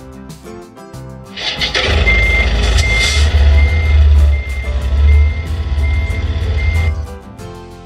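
Truck reversing alarm beeping steadily, about one and a half beeps a second, over a low engine rumble; the beeping starts about two seconds in and stops near the end. A short run of music-like tones comes before it.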